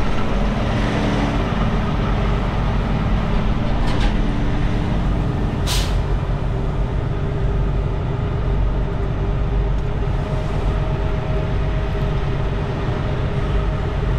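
Semi-truck's diesel engine running at low speed as the rig manoeuvres, heard from inside the cab, with a short air-brake hiss about six seconds in.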